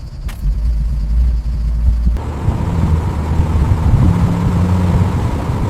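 A car engine running with a low rumble; about two seconds in the sound changes abruptly to a steadier hum with more road-like noise.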